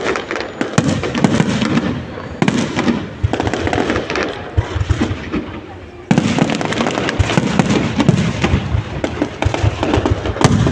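Fireworks display going off: a dense run of bangs and crackling, dipping for a moment and then coming back suddenly louder about six seconds in, with voices of the watching crowd underneath.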